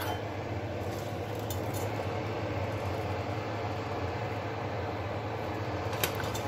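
A steady low hum, with a spoon scooping cooked white rice in a metal pot and one sharp clink of the spoon against the pot near the end.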